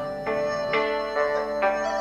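Instrumental background music: a slow melody of held notes, a new note coming in about every half second.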